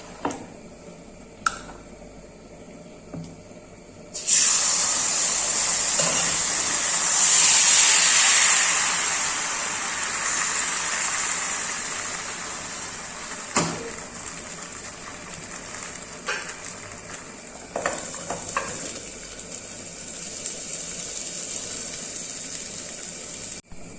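Appam batter sizzling on a hot pan: a sudden loud hiss starts about four seconds in, is strongest a few seconds later, then slowly dies down. A sharp knock comes about halfway through, and a few lighter clicks before the hiss.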